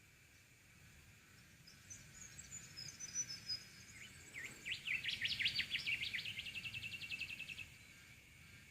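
Bird song: thin high chirps, then a loud run of quick sweeping notes that turns into a fast, even trill and stops abruptly, over a steady high hum.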